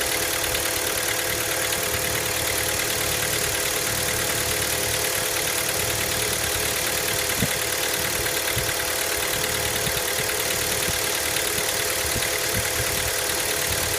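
Hyundai Elantra MD's 1.6-litre four-cylinder engine idling cold, with a steady knock, and one sharper click about seven seconds in.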